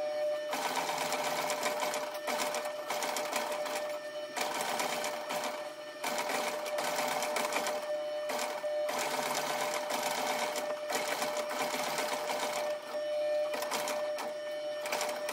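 Long-arm leather patcher sewing machine stitching through boot leather, sewing in the top edge of a new heel lining. The machine runs in stretches of a second or two with brief pauses between them, over a steady hum.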